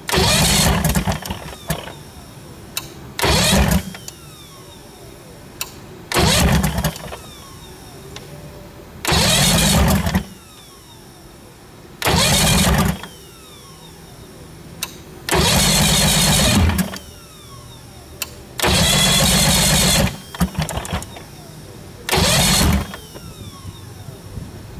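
1976 Mercury inline-six outboard being cranked over in about eight short bursts a few seconds apart. The engine does not keep running between tries; it is hard to start.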